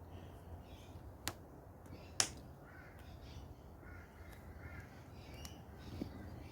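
Faint bird calls with a low background hiss, and two sharp clicks about a second apart early on, the second louder.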